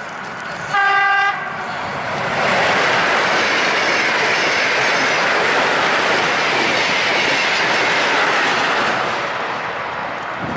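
Electric passenger train sounding one short horn blast about a second in, then passing close by with a loud, steady rush of wheels on the rails that eases off slightly near the end.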